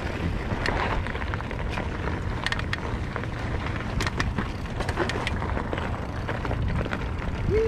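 Mountain bike riding over a rough trail: a steady low rumble of wind on the microphone, with scattered clicks and rattles from the tyres and the bike.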